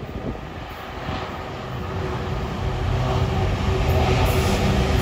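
A Class 66 (BR 266) diesel-electric freight locomotive approaching with a train of wagons. Its two-stroke V12 diesel drone and the rumble of the train grow steadily louder, with a steady hum held over the rumble.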